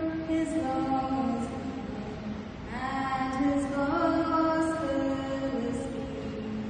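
Slow vocal music: long held sung notes that glide smoothly from one pitch to the next, without clear words.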